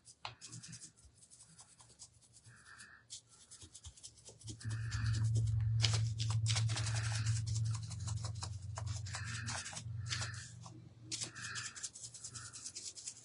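Handling noises of craft items being moved and rummaged through: rubbing and scraping with scattered clicks and taps. A low steady hum joins about five seconds in and fades near ten seconds.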